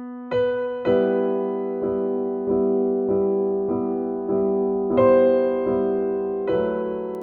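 Slow instrumental keyboard music in E minor, in a piano or electric piano tone: a fresh note or chord is struck about every two thirds of a second and left to ring and fade over held chords.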